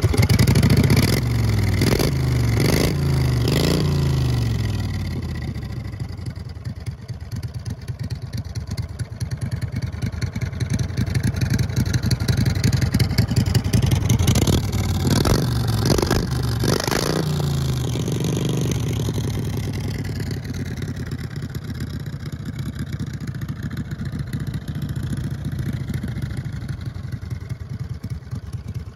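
570cc V-twin engine on a motorized bicycle, revved in quick blips about three times near the start and again a few times midway, then running steadier and quieter toward the end.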